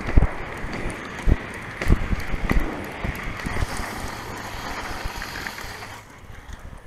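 Inline skate wheels rolling on asphalt, with wind buffeting the action camera's microphone and scattered sharp knocks. The rolling and wind noise dies down about six seconds in.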